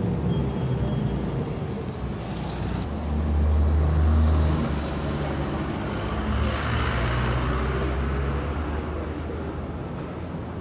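Road traffic: car and bus engines running with a steady low drone, one nearby engine growing louder for a stretch about three to four and a half seconds in.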